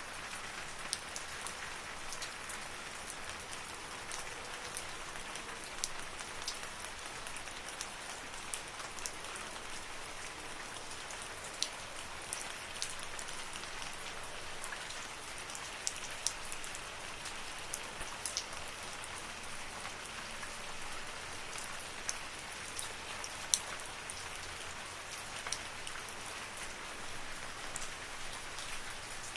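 Steady rain falling in a forest: an even hiss with scattered sharp ticks of single drops landing close by.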